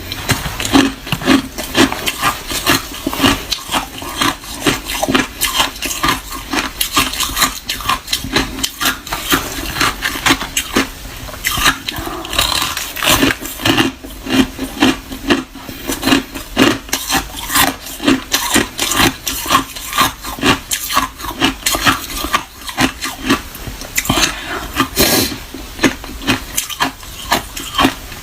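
Close-miked mouth chewing crushed clear ice: dense, sharp crunching and crackling, a few chews a second without pause.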